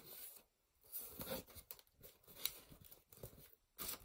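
Hands moving a cardboard box flap and rustling the crumpled newspaper packed inside, in short, soft scrapes and crinkles with brief pauses between them.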